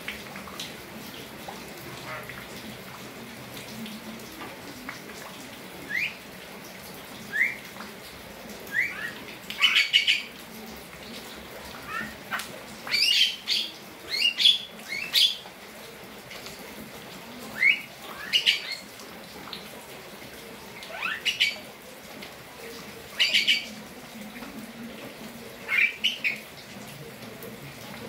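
Javan mynas (jalak kebo) calling: a few short rising whistles, then louder clusters of harsh squawking calls every few seconds.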